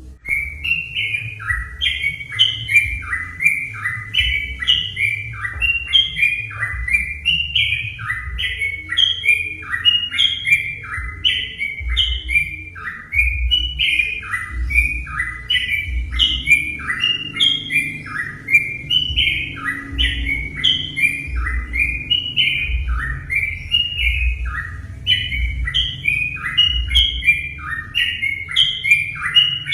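Yellow-vented bulbul (trucuk) singing: a continuous run of short, bubbly phrases of descending whistled notes, about two a second, over a low rumble.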